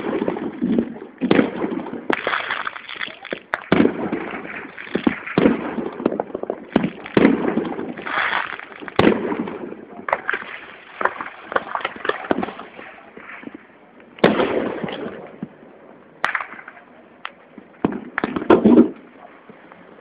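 Firecrackers and fireworks going off all around: a dense, irregular run of overlapping bangs and crackles, with louder blasts every second or two, thinning out near the end.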